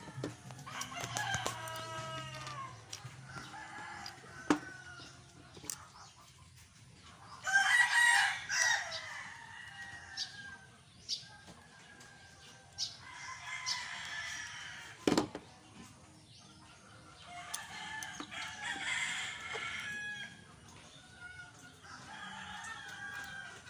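Roosters crowing several times, the loudest call about a third of the way through, with a couple of sharp knocks in between.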